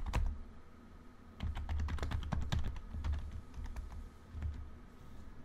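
Typing on a computer keyboard: a short flurry of keystrokes at the start, then a longer run of quick keystrokes from about a second and a half in, thinning out toward the end.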